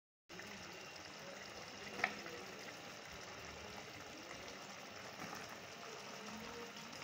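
Tomato-onion masala bubbling and sizzling faintly in a pan, with potato slices being added and stirred in with a wooden spoon. The sound starts abruptly just after the start, and there is one sharp knock about two seconds in.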